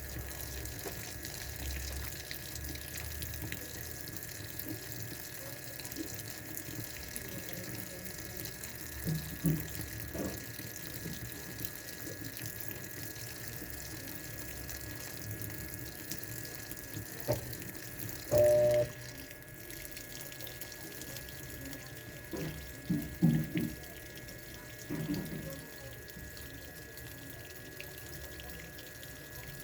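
Washing machine filling with water: a steady rush of incoming water, broken by a few brief louder knocks and sounds, the loudest, with a pitch to it, about two-thirds of the way through.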